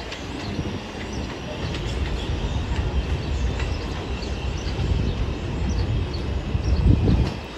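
New York City Subway R142-family 4 train approaching on the elevated line: a steady low rumble of wheels on the steel el structure, growing a little louder, with a low thump near the end.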